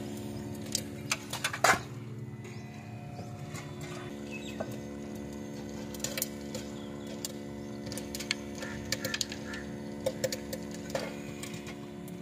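Corn kernels popping in a street popcorn machine's kettle: scattered sharp pops at irregular intervals, the loudest about two seconds in, over the machine's steady hum.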